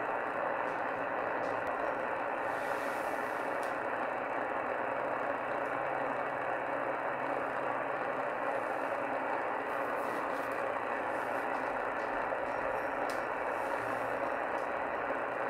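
Steady static hiss from a shortwave receiver's speaker, tuned to 27.385 MHz CB channel 38 lower sideband, with the skip signal faded out into band noise.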